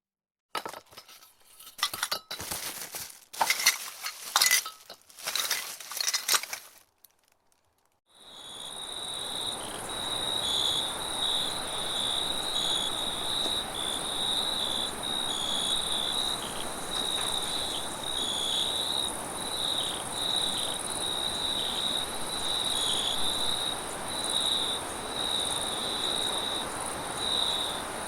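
A few seconds of irregular sharp, clattering noises, then, after a short gap, a steady chorus of chirping insects: a continuous high-pitched shrill that flickers constantly, with a hiss above it.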